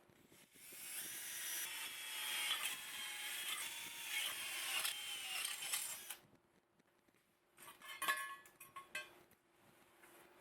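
A power tool cutting for about five seconds, its whining pitch wavering under load, then stopping; a few clicks and knocks follow near the end.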